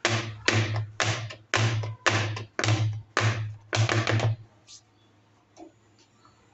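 Heart-shaped aluminium cake tin full of batter knocked down repeatedly on a board, about two knocks a second, to settle and level the batter. The knocking stops about four and a half seconds in.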